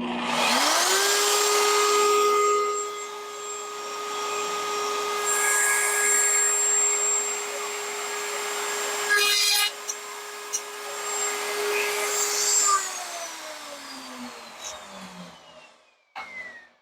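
Router on a router table switched on and spinning up, then running steadily while a box-joint slot is cut through dry cedar boards, with louder cutting noise and a few knocks partway through. Near the end it is switched off and winds down with a falling whine.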